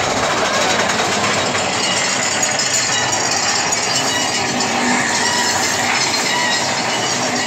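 Big Thunder Mountain Railroad mine-train roller coaster running on its track: a steady rumble and clatter of the car's wheels on the rails.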